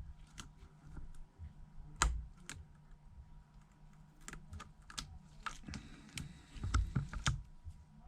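Irregular small clicks and taps of repair tools on iPhone 7 Plus internals as the earpiece and front-camera flex is worked free, busiest in the second half, over a faint steady low hum.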